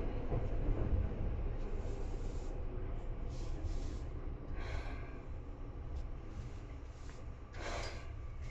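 Seibu 2000 series electric train heard from inside the car: a low rumble of running gear on the track that slowly fades. There are two short hisses, about halfway through and near the end.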